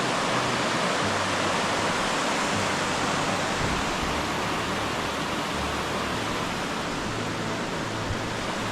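Steady rush of water pouring down a stretch of waterfalls.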